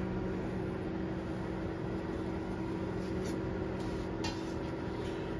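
Steady electric appliance hum with a low drone, and a few faint light taps a little past halfway through.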